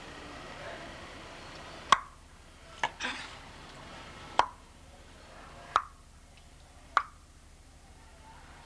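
A series of about six short, sharp taps at irregular intervals of roughly a second, the first the loudest, with a brief rustle after the second.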